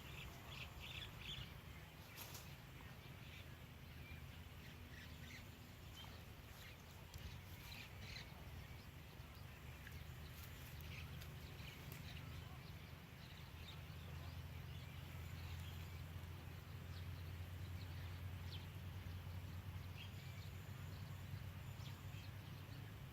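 Quiet outdoor ambience: faint, scattered bird chirps over a steady low rumble that grows slightly louder in the second half.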